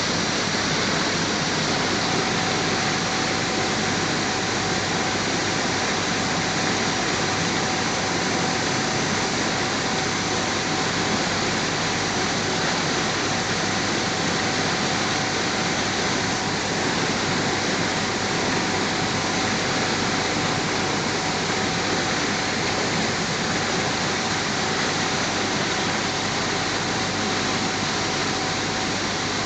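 Steady rushing hiss of water jetting out of a turbine condenser during backwash, with a faint steady whine underneath.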